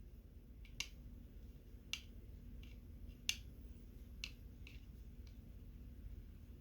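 A handful of faint, sharp clicks and taps, irregularly spaced and the loudest a little past halfway: a small flat metal bit touching and pressing on the button contact traces of a remote control's circuit board.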